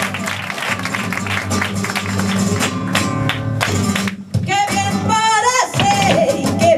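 Flamenco guitar strumming sevillanas with sharp percussive strokes; after a short break about four seconds in, a female singer comes in with a wavering, ornamented line over the guitar.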